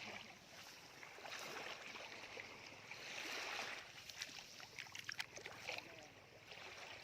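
Small waves washing up and draining back over the sand at the water's edge, an even hiss that swells about three seconds in. A few small clicks and splashes come between about four and six seconds in.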